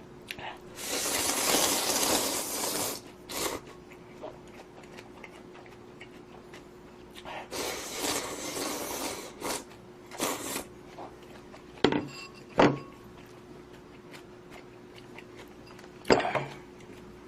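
Slurping of spicy budae-jjigae ramen broth and noodles, two long loud slurps, then a few sharp clinks of a utensil against the pot or bowl. A faint steady hum sits underneath.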